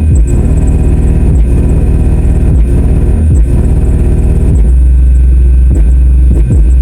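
Massive Audio GTX 15-inch subwoofer playing a bass track very loud on a bench test: repeating deep bass hits about once a second, then a long, steady low bass note from about two-thirds of the way in.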